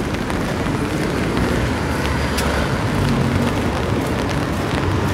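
City street ambience: a steady low rumble of traffic with scattered faint ticks.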